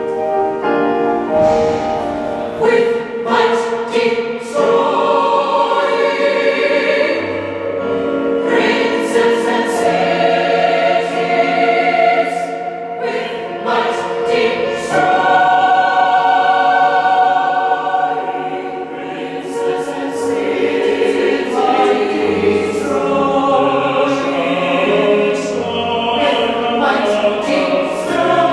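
Mixed choir of women and men singing a choral piece in harmony.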